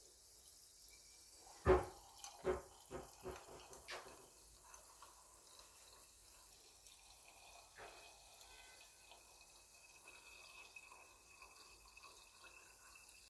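Sparkling water poured from a plastic bottle into a wine glass of citrus slices. A few loud glugs come from the bottle about two seconds in, then a steady, faint trickling pour with fizzing.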